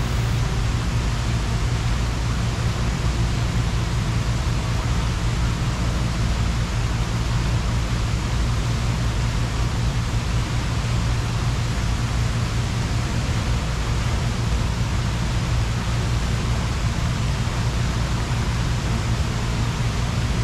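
Steady rushing and splashing of a large fountain's water jets falling into the basin, an even noise with a low rumble underneath.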